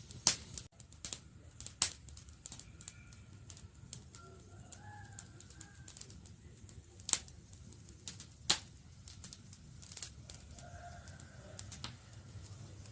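Wood campfire crackling: irregular sharp pops and snaps over a low hiss, with a few louder snaps scattered through. Faint bird calls sound in the background.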